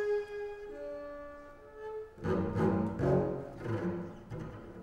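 Contemporary concert music: a few long held notes at steady pitch, then from about two seconds in a louder, lower, denser passage that fades near the end.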